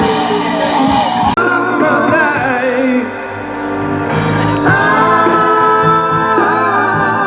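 Music with singing. About a second and a half in, dense full-band music switches abruptly to held, wavering sung notes over a steady low accompaniment.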